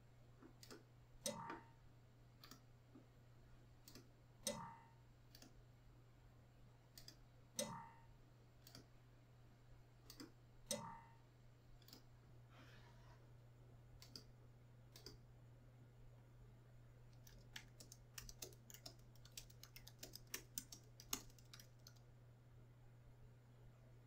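Faint clicking on a computer keyboard. A dense run of quick keystrokes in the second half types out a folder name. Earlier there are sparse clicks and four louder clicks with a short ring, about three seconds apart, all over a steady low hum.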